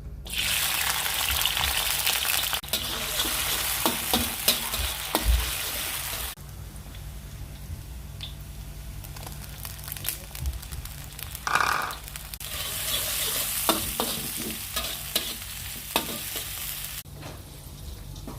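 Water spinach and salted fish sizzling as they are stir-fried in a hot pan, with a spatula clacking against the pan. The sizzle is loud, drops for several seconds in the middle, and returns loud before easing near the end.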